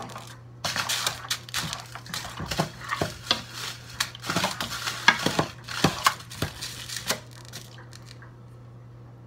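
A metal utensil clattering and scraping against kitchen cookware in irregular clicks and knocks, which stop about seven seconds in, leaving only a steady low hum.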